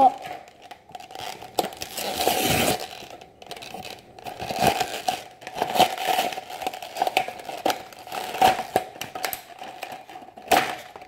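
Plastic bags and cardboard packaging of a toy set being opened by hand: irregular crinkling, rustling and tearing with scattered small clicks. A faint steady buzz runs underneath.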